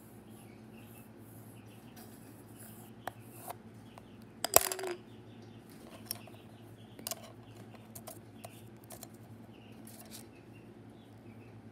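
Steady low hum of a running freeze dryer, with scattered small clicks and taps and one louder clatter about four and a half seconds in.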